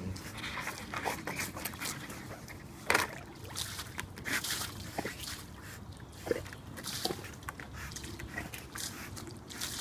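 Pool water sloshing and splashing in uneven bursts as a golden retriever wades and pushes a foam bodyboard with its mouth, with one sharp knock about three seconds in.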